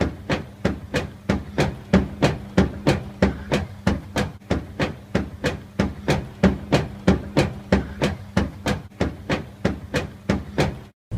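Beko washing machine running with a steady low hum and an even, repeated knocking, about three knocks a second.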